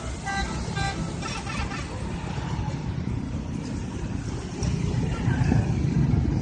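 Bus 'telolet' musical horn sounding a quick run of short pitched toots that stops about two seconds in, followed by the bus's engine rumbling, growing louder near the end.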